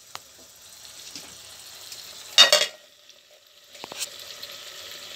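Vegetables cooking in broth in a frying pan, stirred with a ladle, with a few small clicks. About halfway through comes a loud clatter as the aluminium lid goes onto the pan, covering the pinakbet to simmer until soft.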